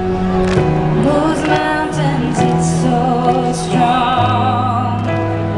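Trance music played live over a concert sound system: long held bass notes that step in pitch every second or so, under a sustained, wavering sung vocal.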